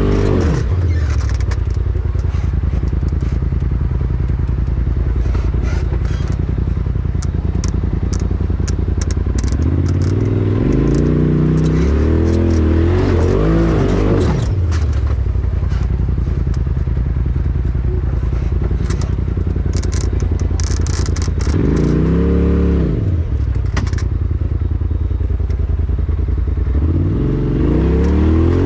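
Polaris RZR side-by-side's engine running under load on a rough climb. Its revs rise and fall in bursts about three times, about a third of the way in, past the middle and near the end. Scattered sharp clicks and scrapes are heard throughout.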